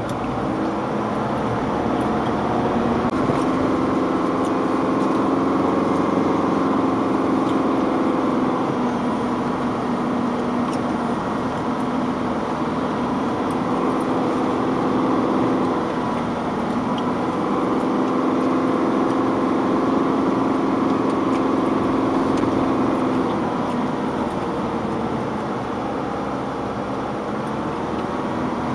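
Car engine running under load, heard from inside the cabin as the vehicle climbs a muddy dirt track, its note rising and falling and easing off about halfway through and again near the end.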